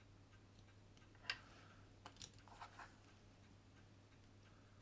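Near silence broken by a few faint, small clicks of a watchmaker's screwdriver working the screws of a pocket watch's mainspring bridge: one sharper click about a second in, then several lighter ones a second later.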